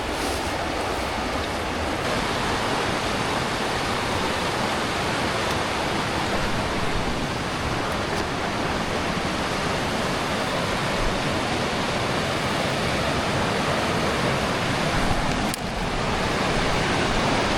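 Mountain creek water rushing over rocks: a steady, full rush, dipping briefly near the end.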